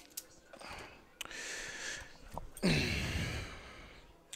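A person's breathing: a hissy inhale about a second in, then a loud voiced exhale, like a sigh or grunt, a little past halfway, its pitch falling. A few small clicks of wire being handled come near the start.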